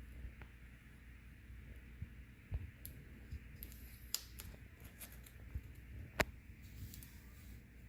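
Scattered light rustles and small taps from vinyl decals on their paper backing and tape being handled and pressed against a car bumper, with one sharper click about six seconds in.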